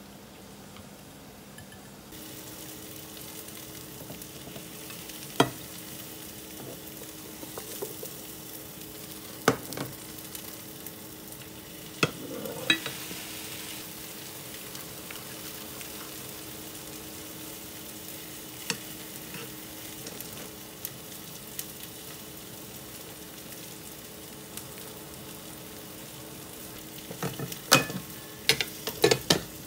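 A cabbage-and-egg pizza base sizzles steadily as it fries in a pan. Now and then a utensil taps sharply against the pan or a glass bowl, with a quick run of knocks near the end. For the first couple of seconds there is only the soft sound of chopsticks stirring sauce in a glass bowl, before the sizzle comes in.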